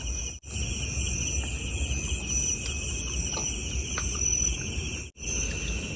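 Night-time chorus of crickets, a steady, finely pulsing high trill, over a faint low rumble. The sound cuts out briefly twice, about half a second in and near the end.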